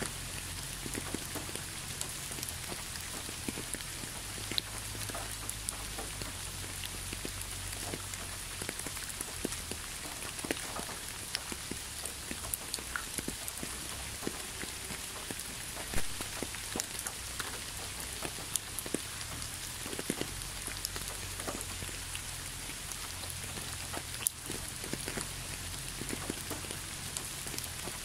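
Steady rainfall, with many separate drops landing close by as sharp little ticks over an even hiss.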